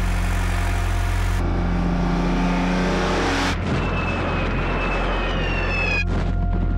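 War sound effects over a sustained low music drone. Engine noise from tanks rumbles through the first half, then the slowly falling whistle of a dropping bomb runs from about halfway in and cuts off abruptly shortly before the end.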